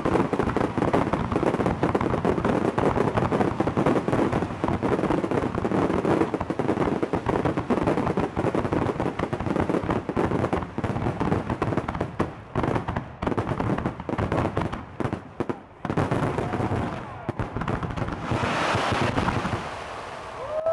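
Fireworks display: a dense, rapid barrage of bangs and crackles from bursting aerial shells. It thins into separate bangs a little past halfway, and near the end gives way to a rushing hiss.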